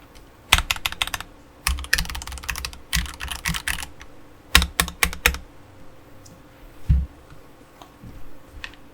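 Akko 3068B Plus mechanical keyboard with Akko Jelly Purple tactile switches: its large stabilized keys are pressed in short runs of sharp clicks, each with a low thud, with a pause between runs. The presses stop about seven seconds in.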